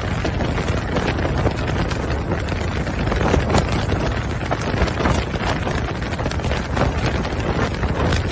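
Strong wind buffeting the microphone on the move: a steady, loud rushing rumble with irregular crackles and pops.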